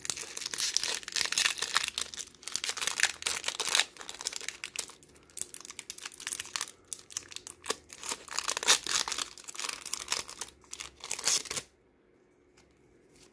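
Foil wrapper of a Pokémon Chilling Reign booster pack crinkling and tearing as it is opened by hand, a dense crackle that stops abruptly near the end.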